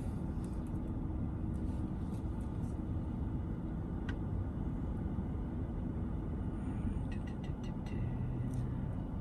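Steady low vehicle rumble with a few faint clicks, one about four seconds in and several near the end.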